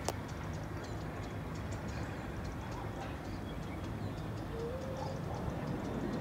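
Outdoor ambience: a steady low rumble, with faint scattered clicks and a short chirp about two-thirds of the way in.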